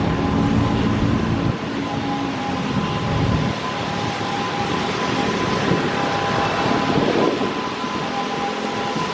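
Road traffic passing on a wet road: car and motorcycle engines and tyre noise, heaviest in the first second and a half, with a bus coming close near the end. A steady high-pitched tone, with a second one coming and going, hangs over the traffic throughout.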